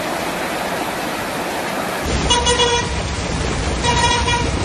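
Rushing floodwater. After a cut it gives way to a heavier low rumble of street and water noise, over which a vehicle horn honks twice, each honk about half a second long.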